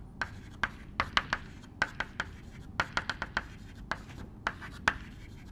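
Chalk writing on a blackboard: a quick, irregular run of short taps and scratches as the letters are stroked on.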